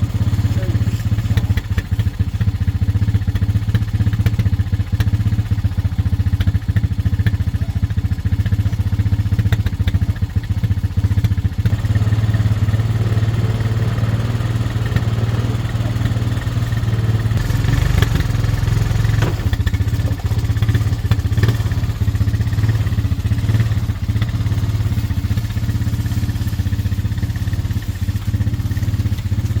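A vehicle on the move: a steady low drone with frequent rattles and knocks, as over rough ground. The sound changes about twelve seconds in and grows noisier for a couple of seconds around eighteen seconds in.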